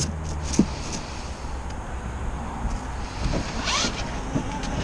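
Knocks and scrapes of a plastic ride-on toy car being turned over and moved about on concrete, over rough wind noise on the microphone. A low steady hum fades out about a second in.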